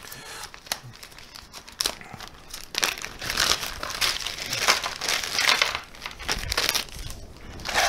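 Clear plastic zip-lock bag crinkling as it is pulled open and handled, faint at first and louder and busier from about three seconds in.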